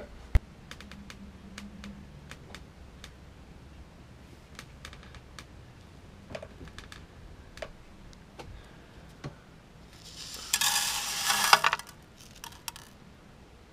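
Scattered small clicks and taps of handling on a tabletop, with a sharp knock just after the start. About ten seconds in comes a loud burst of rattling and hissing lasting under two seconds, as grains of black lift powder from a firework shell are poured into a plastic box.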